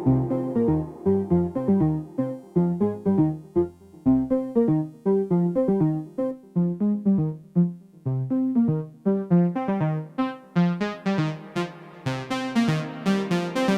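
IK Multimedia Uno Synth Pro X analog synthesizer playing a rhythmic sequenced pattern of short notes over a bass line. From about two-thirds of the way in, the filter opens and the notes grow steadily brighter and buzzier.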